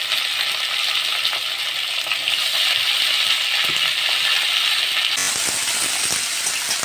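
Hot oil sizzling in a steel kadhai as cut eggplant and potato pieces are added to frying onions, with clinks of a metal spatula against the pan. About five seconds in the sound changes abruptly, and the vegetables are stirred and tossed with the spatula.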